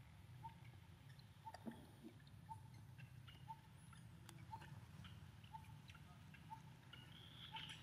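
Near silence: a faint outdoor background in which a short, soft note repeats evenly about once a second over a low hum, with a few faint clicks.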